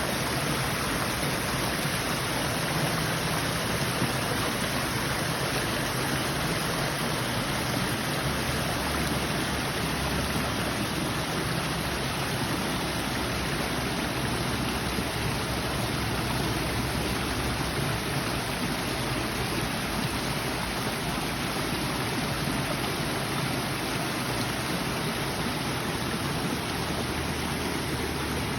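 Small waterfall splashing and rushing steadily, with no change through the stretch.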